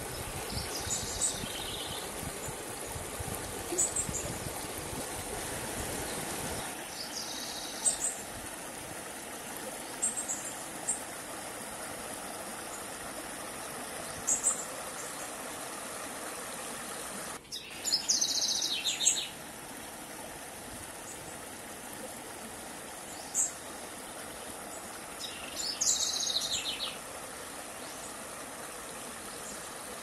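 Shallow river running over rocks and small riffles, a steady rush of water, with birds calling at intervals: short chirps every few seconds and longer calls about 18 and 26 seconds in.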